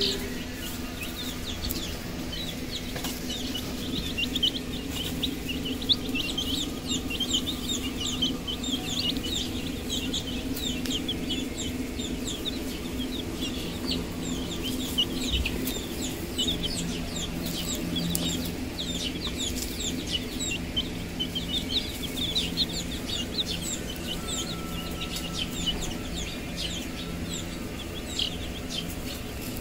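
A flock of domestic chicken chicks peeping constantly: a dense run of short, high peeps that each fall in pitch, over a steady low hum.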